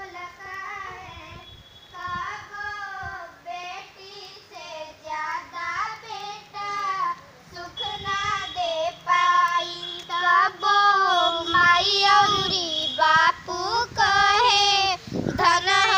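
A young schoolgirl singing a slow song about a daughter, one melodic voice with long held notes, growing louder about halfway through.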